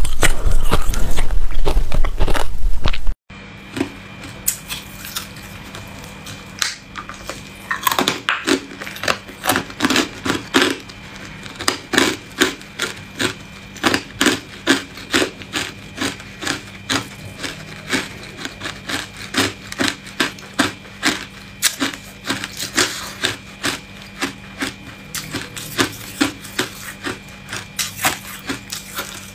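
Loud, close crunching of ice being chewed for about three seconds, then a sudden cut to a much quieter run of irregular sharp clicks and cracks, a few a second, as a silicone ice cube tray full of frozen cubes is handled and twisted. A faint steady hum runs under the clicks.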